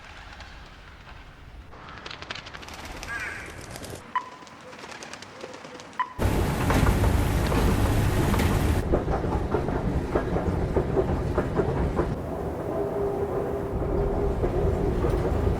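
A sequence of quiet city ambiences with a few bird chirps and two short beeps, cut sharply about six seconds in to the loud, steady noise of a passenger train running.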